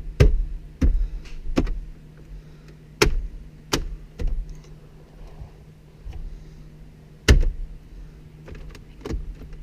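Plastic dashboard trim pieces being handled and pressed back into place around a car stereo head unit: an irregular string of sharp plastic clicks and knocks, the loudest about seven seconds in.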